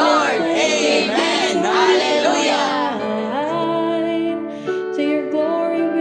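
Background music: a voice sings over held instrumental accompaniment for about the first three seconds, then the instruments carry on alone.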